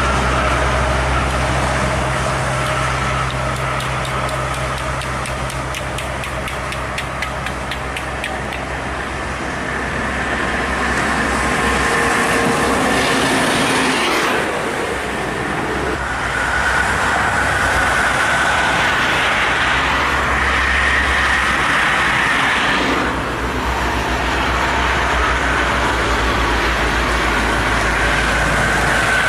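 Buses and heavy trucks driving past on a motorway: a steady low diesel engine hum with road and tyre noise. The sound changes abruptly twice, about halfway through and again some seconds later.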